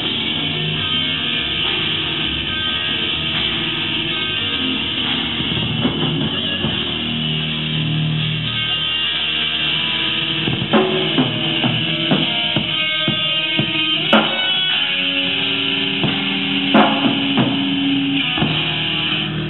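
Live metal band playing: electric guitar and a drum kit. From about ten seconds in, sharp drum hits stand out over held guitar notes.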